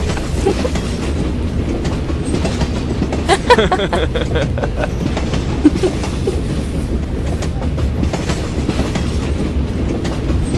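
Subway train running, heard from inside the car: a steady low rumble with the clatter of the wheels on the track. A brief higher-pitched sound comes about three and a half seconds in, and a sharp knock about two seconds later.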